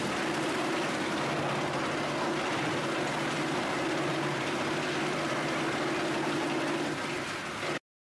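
Skorpion 350EB wood chipper and its conveyor running steadily, with wood chips pouring and rattling into the chute over a steady machine hum. The sound cuts off suddenly near the end.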